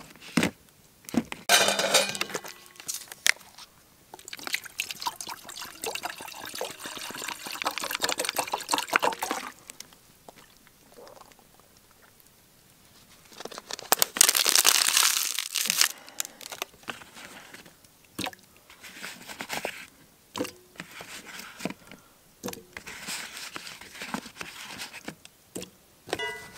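Knife cutting and scraping potato on a plate with sharp clicks, then about halfway through water poured from a plastic bottle into a small pot for about two seconds, the loudest sound. Lighter clicks and handling follow.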